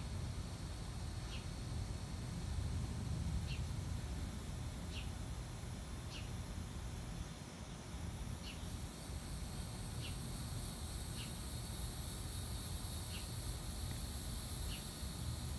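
An old ceiling fan running, with a low steady hum and whoosh from its motor and blades. Over it comes a steady high outdoor insect drone that grows louder about halfway through, and a short high chirp every second or two.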